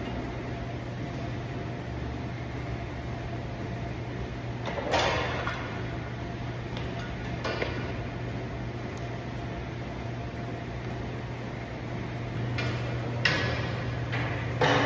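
A steady low machine hum with a few scattered sharp clanks of gym equipment; near the end, metal dumbbells clink as they are picked up off the floor.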